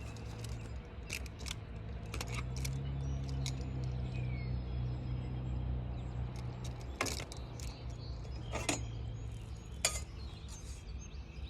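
Scattered sharp metallic clicks and clinks, loudest about two-thirds of the way in and near the end, of a topwater lure's treble hooks being worked free of a tangled bass, over a steady low hum.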